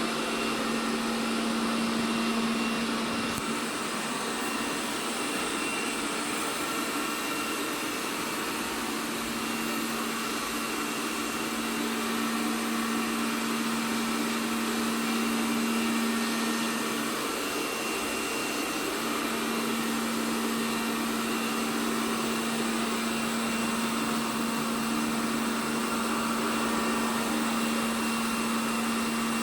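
ELARI SmartBot Lite SBT-002A robot vacuum cleaner running steadily: a constant motor hum with a low steady tone that wavers briefly about two-thirds of the way through.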